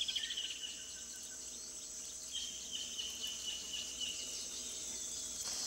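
Tropical forest insects: a steady high-pitched buzz with runs of rapid chirping, one at the start and another from about two and a half seconds in.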